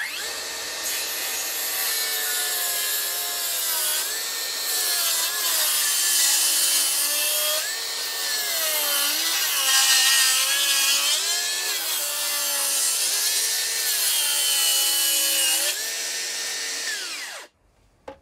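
DeWalt FlexVolt cordless circular saw ripping a board lengthwise. The motor whine sags in pitch several times as the blade loads up in the cut, then winds down and stops quickly near the end.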